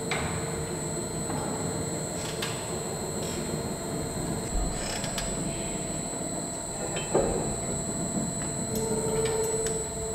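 1801 Boulton and Watt beam engine running: a steady mechanical rumble with a few sharp knocks, the loudest about seven seconds in.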